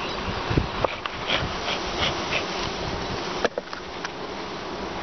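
Honeybees buzzing in a steady hum over the open frames of a long hive, with a few sharp knocks as a hive tool works the wooden frames.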